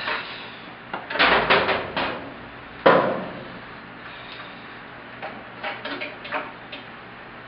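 Clunks and knocks of shop equipment being handled and packed away, a cluster of rattling knocks followed by one loud bang with a brief ring about three seconds in, then a few lighter knocks.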